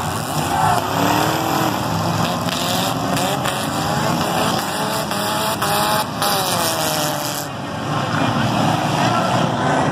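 A large pack of race cars running laps together, many engines at once with overlapping pitches that rise and fall as the cars accelerate and pass.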